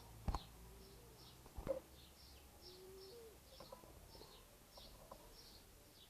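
Small birds chirping over and over in short, falling, high notes, two or three a second. Two sharp knocks come about a third of a second in and again near two seconds, and two short low notes sound in between.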